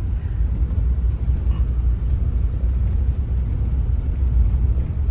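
A vehicle driving along, a steady low rumble of engine and road noise.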